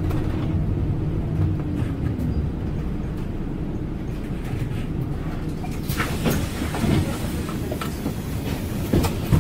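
Interior sound of a Scania Citywide city bus: a low engine and road rumble, with a faint whine that fades out within the first couple of seconds. Several sharp clicks and knocks come in the last few seconds as the bus reaches its stop.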